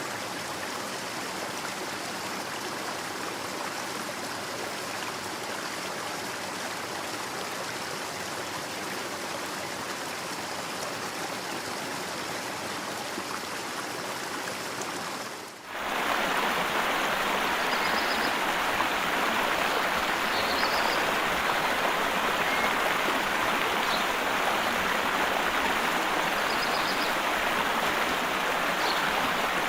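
River water flowing in a steady rush. Just before halfway it dips and gives way to a louder, fuller stretch of rushing water, with a few faint short bird chirps over it.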